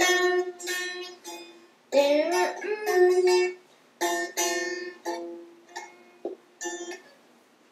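Plucked string instrument, ukulele or small guitar, strumming a string of chords that each ring and die away. The strums come quickly at first, then grow sparser and quieter towards the end.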